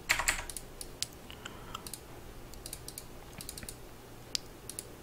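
Computer keyboard keys clicking: a quick flurry of presses just after the start, then scattered single key taps.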